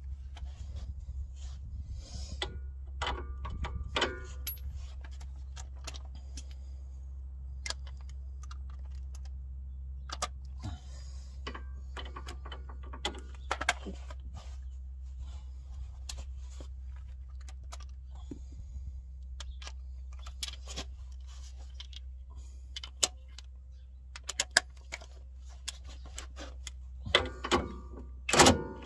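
Scattered metallic clinks and clicks of hand tools, sockets and spanners being handled, with a cluster of louder clicks near the end as a socket is brought up to the ball-joint nut.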